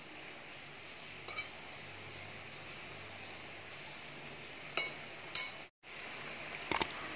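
A few light metallic clinks of a metal ladle tapping an aluminium cooking pot, spaced well apart over a faint steady hiss. A sharper pair of clicks comes near the end.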